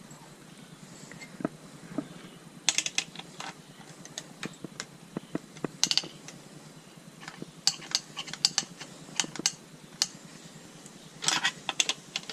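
Hand tools working on the indicator wiring and fittings: irregular sharp metallic clicks and short rattling clusters, the loudest bunched about three seconds in, around six seconds, and near the end.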